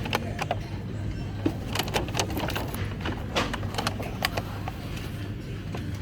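Shop floor ambience: a steady low hum with frequent light clicks and knocks scattered through it.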